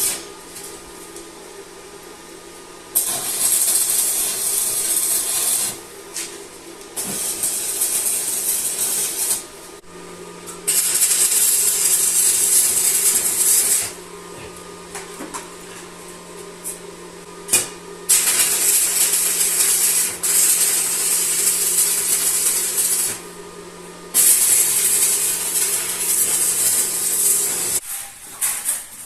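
Electric arc welding a steel frame: a loud crackling hiss in about five runs of a few seconds each, stopping between welds, over a steady low hum.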